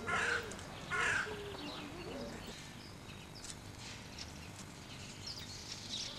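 A crow cawing, two harsh caws about a second apart, followed by faint chirps of small birds.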